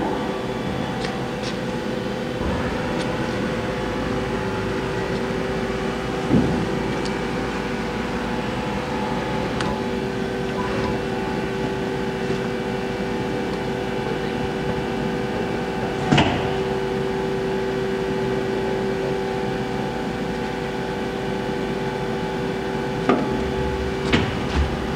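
Doosan Puma GT-3100L CNC turning center running under power: a steady machine hum carrying a couple of fixed tones. It is broken by sharp clunks about six and sixteen seconds in and twice near the end, and the hum's tone is stronger after the second clunk.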